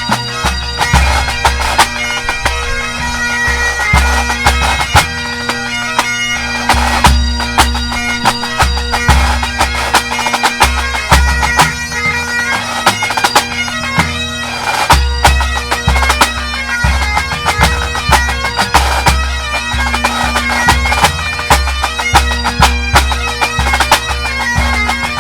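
Pipe band playing: Great Highland bagpipes sound a melody over their steady drones, driven by the band's snare, tenor and bass drums in a regular beat. The low drum pulse drops out briefly twice in the middle.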